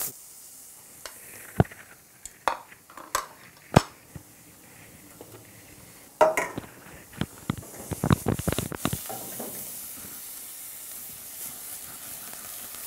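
Diced red onions sizzling as they hit hot oil in a stainless steel frying pan, with a scatter of sharp spoon knocks and scrapes against the pan as they are tipped in and stirred with a wooden spoon. The knocks bunch together about two-thirds of the way in, then give way to a steady frying sizzle.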